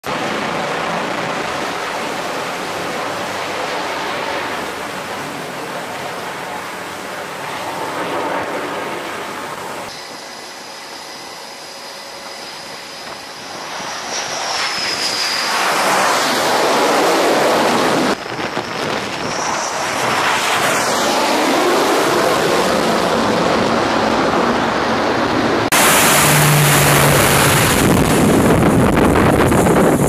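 Carrier flight-deck aircraft noise with wind buffeting the microphone, cut between several shots. A swell of jet noise rises and fades midway, and the loudest part, near the end, is a turboprop E-2 Hawkeye coming in to land.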